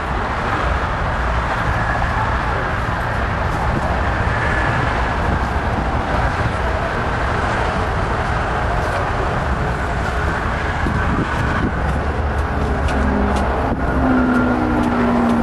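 Heavy trucks' diesel engines running in a steady wash of outdoor noise with a deep rumble, and a short pitched low tone near the end.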